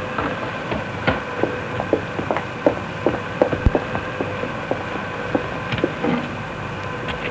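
Cardboard cake boxes being handled and knocked about on a shelf, giving a dozen or so irregular knocks and taps over a steady machine hum.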